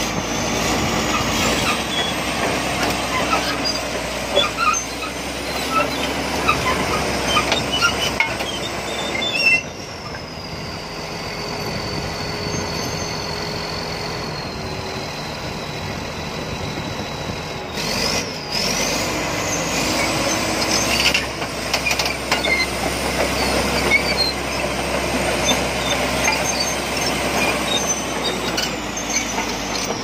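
Komatsu crawler bulldozer running, its diesel engine carrying a high whine that drops about ten seconds in and climbs again near eighteen seconds, with metallic clatter from its steel tracks and undercarriage.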